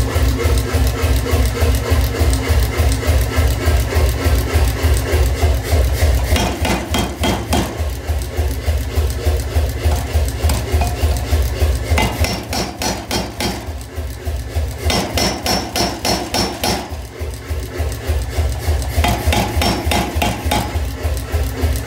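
Power hammer forging a red-hot steel bar: a rapid, steady run of blows, about three or four a second, over the machine's low running drone. The blows are lighter for a while in the middle.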